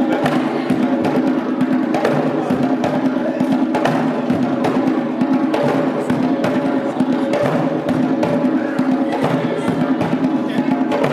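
Music with busy percussion: many quick drum or wood-block strokes over steady pitched tones, at an even level.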